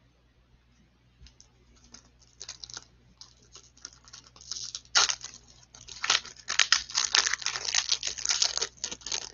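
A foil trading-card pack wrapper being torn open and crinkled by gloved hands. It starts as faint scattered crackles about a second in and becomes a dense, loud crinkling from about halfway through.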